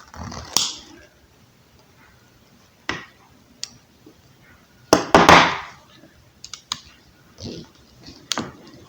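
Hard plastic parts of an extension-cord plug and hand tools clicking, scraping and knocking on a towel-covered table as the old plug is taken apart, with a louder clatter about five seconds in.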